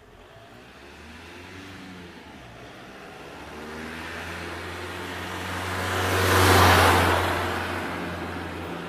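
A car driving past: engine and tyre noise build slowly as it approaches, are loudest about six and a half seconds in, then fade as it moves away.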